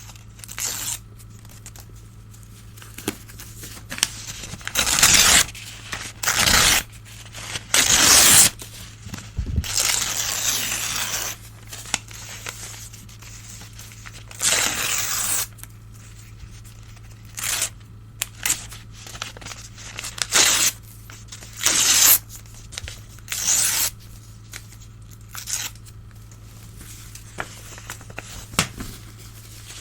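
Sheets of old newspaper being torn by hand in repeated rips, some short and some drawn out over a second or more, with pauses between them. A faint steady low hum runs beneath.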